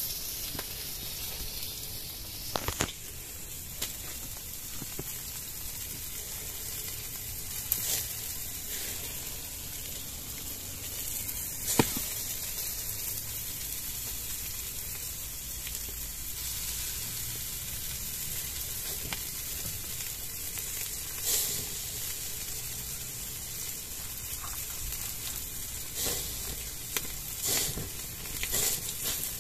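Chicken inasal sizzling on a grill over charcoal: a steady hiss of marinade and fat dripping onto the hot coals, with a few sharp pops and crackles. A cluster of crackles comes near the end as the chicken is basted with a lemongrass brush.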